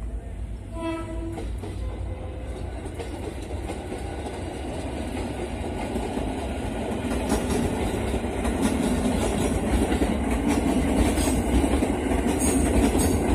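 KRL Commuter Line electric multiple unit passing on the track. A short horn blast sounds about a second in, then the rumble of the wheels grows steadily louder, with rail joint clicks as the cars roll by.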